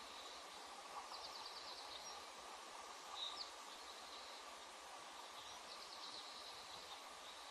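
Faint outdoor ambience: a steady hiss with a faint even hum, and high, thin bird calls, a quick run of short chirps about a second in, one chirp about three seconds in, and another quick run of chirps about six seconds in.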